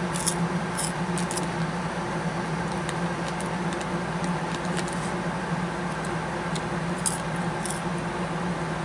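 Crunching of candy-coated popcorn being chewed close to the microphone: scattered crisp crackles at uneven intervals, over a steady low hum.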